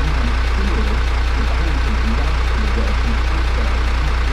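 Heavy truck engine idling steadily with a deep, even rumble.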